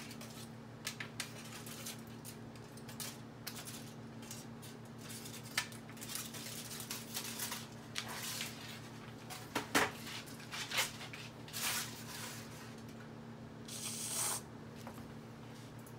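Light taps and knocks as tangerine halves are set down on a slate serving board. Near the end comes a short hiss as whipped topping is sprayed from an aerosol can. A steady low hum runs underneath.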